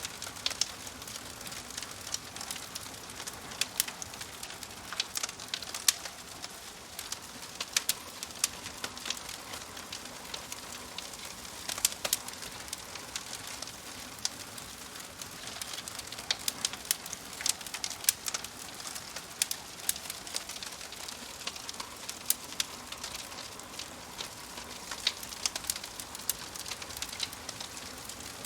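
Wood fire crackling in a fireplace: irregular sharp pops and snaps from the burning logs over a steady soft hiss.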